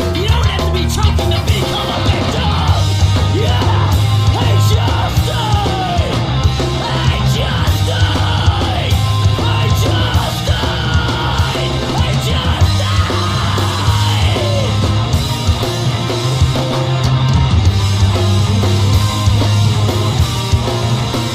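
Loud heavy rock song with shouted vocals over a steady, heavy bass.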